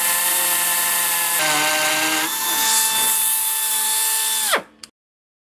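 Nitto Kohki AMB-0307 pneumatic mini beveler running, chamfering the edge of steel: a high motor whine over loud air hiss, its pitch dropping and recovering as the load changes. About four and a half seconds in it winds down with a falling whine and stops.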